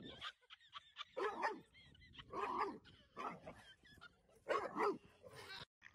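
Dog barking: several short barks spaced about a second apart.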